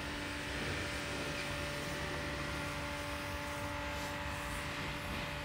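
Steady engine hum with a low rumble and several held tones.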